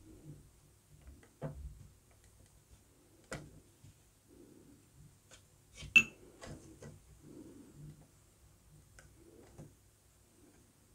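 Small wooden clicks and taps as thin laser-cut wooden parts are handled and pressed into the frames of a model ship's hull, a few seconds apart, with the sharpest click about six seconds in.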